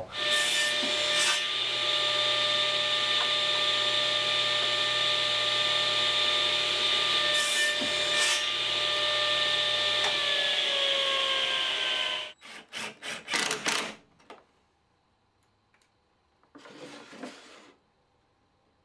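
Table saw running and crosscutting pine strips to length on a crosscut sled; about ten seconds in its pitch starts to fall as the blade winds down, then it cuts off. A few sharp wooden knocks follow, and near the end a cordless impact driver whirs briefly.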